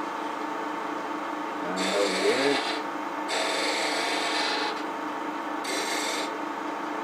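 Wood lathe running with a steady hum while a turning tool cuts the spinning wooden handle blank in three short passes, each a scraping rush of shavings coming off.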